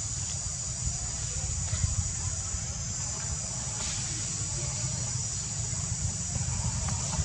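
Outdoor ambience: insects drone steadily at a high pitch over a constant low rumble, with a few faint clicks.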